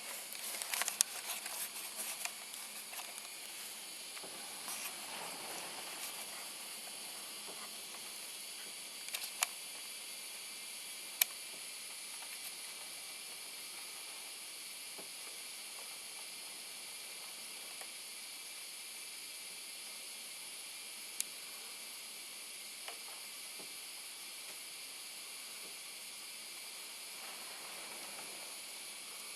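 Steady high-pitched hiss, with a scatter of small clicks and knocks in the first few seconds and a couple of sharp single clicks later on.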